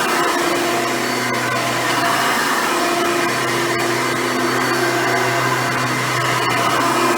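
Hoover Runabout vacuum cleaner running steadily, its motor pitch wavering slightly as it works.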